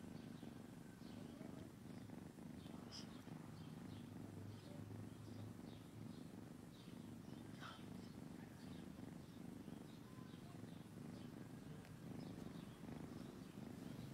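Tabby kitten purring faintly, a steady low rumble, with a few light ticks over it.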